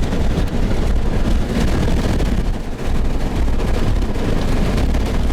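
Strong wind rushing in through a car's open back window close to a tornado, a loud, continuous low rumble with crackling buffets on the microphone, easing briefly about halfway through.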